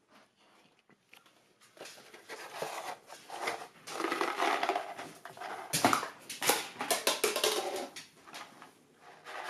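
After a quiet start, a dog moves about excitedly on a tiled kitchen floor, with scuffling and sharp clicks, eager for a promised treat.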